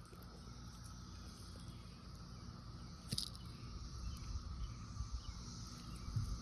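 Steady drone of a distant periodical cicada chorus, with low rumble and a single sharp click about three seconds in.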